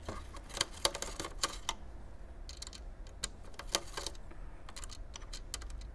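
Scattered light clicks and taps, irregular and a dozen or so in number, from small hard plastic and metal parts of a modem being handled while it is taken apart.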